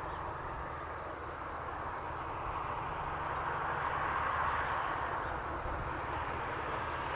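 Wab-class steam tank locomotive working in the distance as it approaches: a steady rushing sound that swells slightly about midway.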